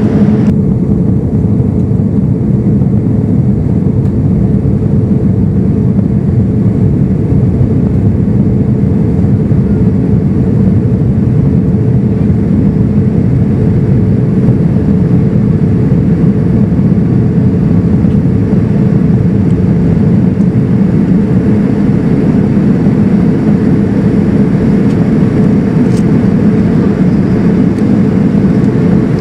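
Cabin noise inside a Boeing 787-9 in flight: a steady, loud drone of engines and airflow, with a low hum held underneath.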